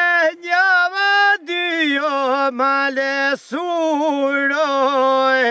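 A single voice singing unaccompanied: long held notes with a wavering vibrato and glides between pitches, broken by a few short pauses for breath.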